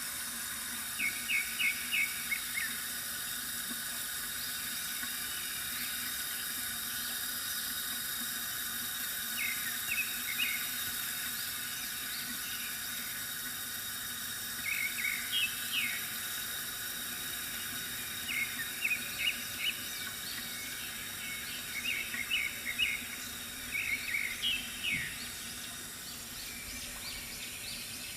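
Water trickling steadily from a bamboo fountain, with small birds chirping in short, quick runs of a few notes every few seconds.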